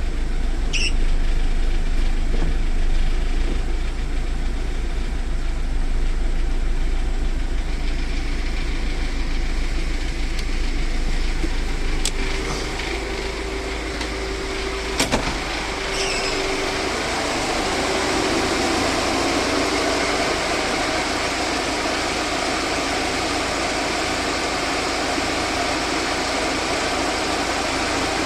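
VAZ 2109's inline four-cylinder engine idling steadily after a full overhaul, with a couple of sharp clicks about midway.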